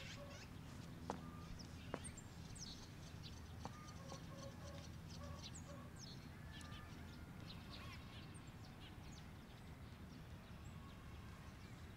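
Faint outdoor ambience with small birds chirping here and there over a low steady hum, and a few soft clicks in the first few seconds.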